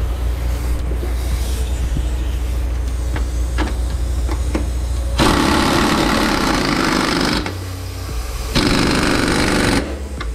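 Impact wrench hammering in two bursts, about two seconds long and then about a second long, tightening the nut on a new semi truck rear shock absorber's mounting bolt. Before the bursts there is a steady low hum.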